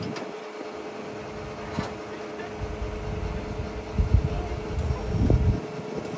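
Steady electric hum of a scissor lift's power unit. An irregular low rumble comes in about two and a half seconds in and is loudest around four seconds, then stops shortly before the end.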